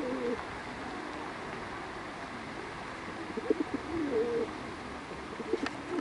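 Feral pigeons cooing: a few low coos, the clearest about four seconds in, over a steady background hiss.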